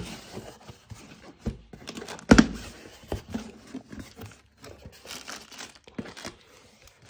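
Cardboard box being opened by hand: flaps and tape tearing and the plastic air-cushion packing inside crinkling in irregular bursts. A louder thump comes about two and a half seconds in.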